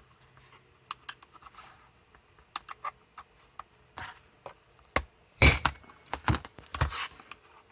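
Hammer striking a screwdriver held against the door latch's metal plate: light clicks of tools on the parts, then a few sharp metallic strikes about five seconds in, knocking the metal piece loose from its retaining pin.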